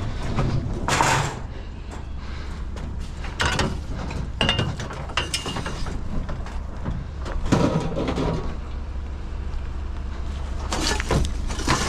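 Knocks, scrapes and clatter of a discarded appliance being grabbed and shifted for loading, with a brief squeak about four seconds in, over a steady low hum.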